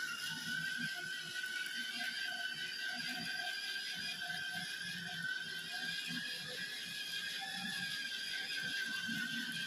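Electric ride-on toy car's motor and plastic gearbox whining steadily as it drives, with its plastic wheels rolling with an uneven rumble over rough stone paving.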